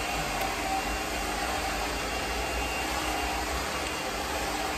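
A hair dryer running steadily, a constant even rush of air.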